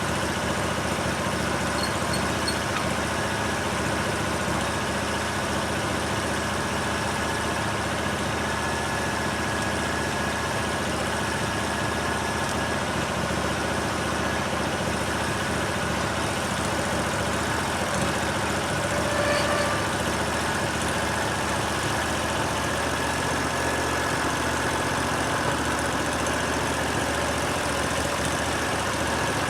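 Portable band sawmill's engine running steadily.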